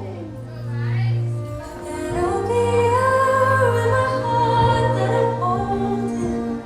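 A slow song with a female voice singing long held notes over a steady low bass.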